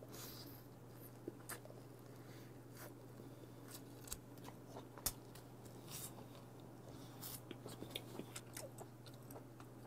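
Quiet chewing of a mouthful of king crab leg meat: soft scattered mouth clicks and smacks over a steady low hum.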